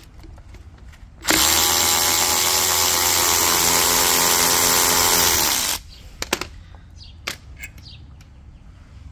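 Cordless electric ratchet running steadily for about four seconds as it backs out an E14 Torx bolt, its pitch sinking as the motor stops; a few light clicks follow.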